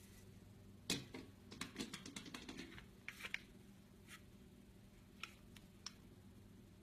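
A scatter of small sharp clicks and taps over a faint steady hum: one louder click about a second in, a quick run of clicks just after, then a few single ticks spread out.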